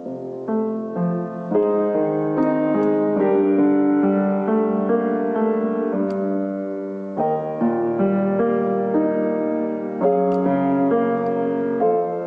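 Solo piano music: a gentle piece of chords changing about once a second over held bass notes.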